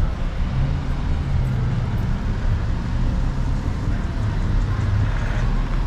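City road traffic: a steady rumble of passing cars, with one engine's hum held low and dipping slightly in pitch about four seconds in.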